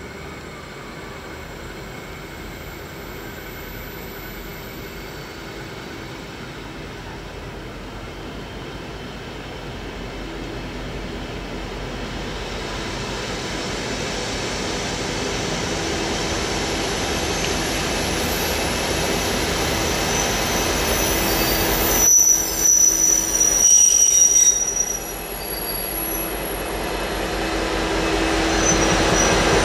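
V/Line N class diesel-electric locomotive hauling passenger carriages, drawing into a station and growing steadily louder as it approaches. From about two-thirds of the way through, a high-pitched wheel and brake squeal joins it, with a few seconds of louder fluttering noise, as the train slows to a stop.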